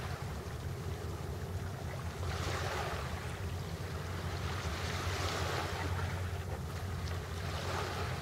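Small waves washing in over a pebble shore, the hiss swelling and fading every two to three seconds, over a steady low rumble.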